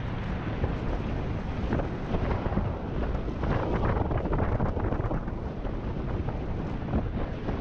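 Wind buffeting the microphone of a GoPro Hero 7 mounted on a moving electric scooter, a gusty low rumble, with road noise and scattered small knocks and rattles.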